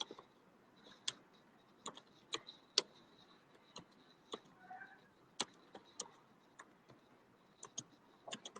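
Scattered, irregular light clicks, a couple a second at most, like computer keys or a mouse being pressed, with a faint thin high whine underneath.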